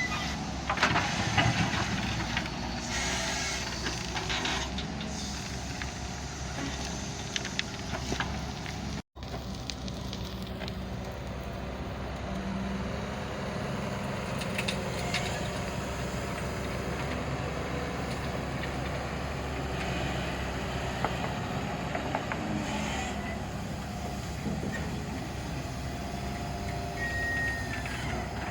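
Excavator diesel engine running steadily, with scattered knocks in the first few seconds and a short falling squeal near the end. The sound drops out for an instant about a third of the way through.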